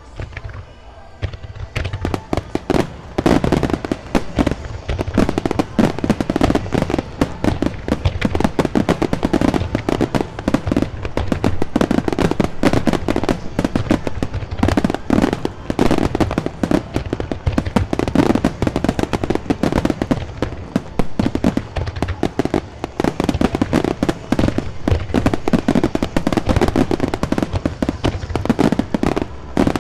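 Aerial fireworks going off in rapid, dense volleys of bangs and crackles. They become thick and continuous about two seconds in and keep on without a pause.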